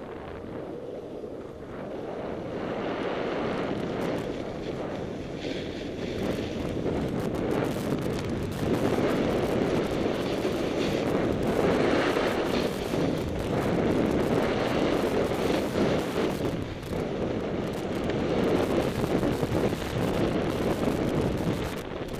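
Snowboard sliding and scraping over packed snow, with wind buffeting the helmet-mounted camera's microphone; the rushing noise builds over the first few seconds as the board picks up speed, then stays steady.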